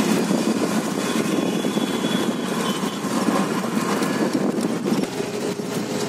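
Truck cab noise while driving: the goods truck's engine and road noise heard from inside the cab, loud and steady.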